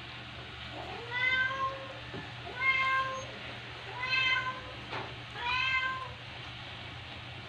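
Newborn border collie puppies crying: four high, thin whining squeals, about one every second and a half, each rising a little in pitch and then holding.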